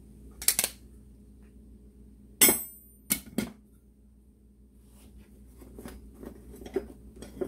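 Steel engine parts and tools knocking and clinking together as they are handled. The loudest knock, about two and a half seconds in, rings briefly like a struck metal plate, and lighter clicks and taps follow near the end.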